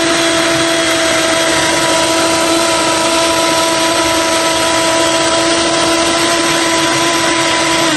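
Electric kitchen blender running steadily at speed as it purees pumpkin leaves: a loud, even motor whine over a rushing noise.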